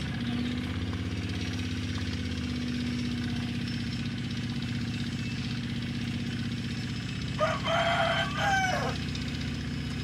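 A small engine idling steadily with an even low hum. About seven and a half seconds in, a rooster crows once, the loudest sound here.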